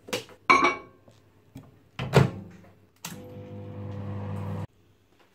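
Microwave oven being used to melt butter: a couple of sharp knocks and clicks from its door and controls, then a steady hum as it runs for about a second and a half before cutting off suddenly.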